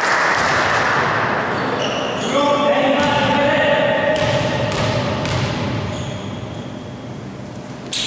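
Players' and spectators' voices echo in a large gym. A basketball bounces on the court floor about four times as the free-throw shooter dribbles before his shot. The hall goes quieter near the end.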